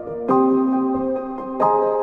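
Instrumental music with no singing: sustained keyboard chords, a new chord struck about every second and a half.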